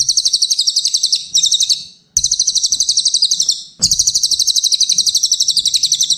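Small songbird's high-pitched chattering song: quick repeated notes, about nine a second, in three bursts with short breaks between them.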